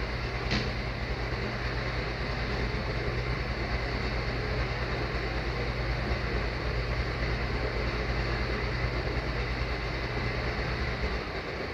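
Metal ball rolling around the track of a gravity demonstration machine, a steady low rumble that dies away about eleven seconds in. A sharp click comes about half a second in.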